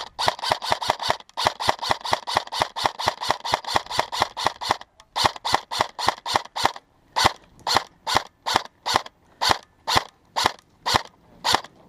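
Airsoft gun firing, loud and close: a rapid string of shots with a short break about a second in, running until about five seconds in. After a brief pause come slower, evenly spaced single shots, about two or three a second.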